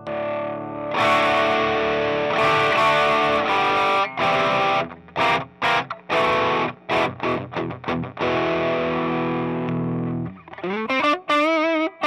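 Electric guitar through a homemade Tube Screamer-style overdrive pedal into a Marshall Vintage Modern amp, playing overdriven chords. The chords ring out, turn to short choppy strums about four seconds in, ring out again, and give way to wavering, bent notes near the end.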